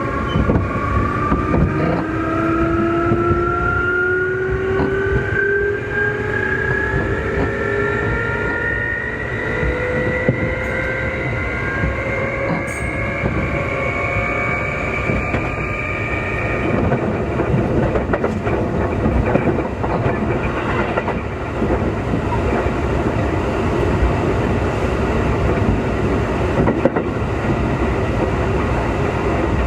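Keikyu 2000 series electric train heard from inside motor car Deha 2052. Its traction motors whine in several tones that climb steadily in pitch as the train accelerates under power. About halfway through, the whine stops and only the rumble of the wheels on the rails remains, with clicks from the rail joints.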